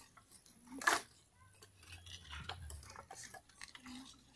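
Split firewood sticks knocking and clacking against each other as they are picked up and stacked by hand: one sharper knock about a second in, then lighter scattered clicks.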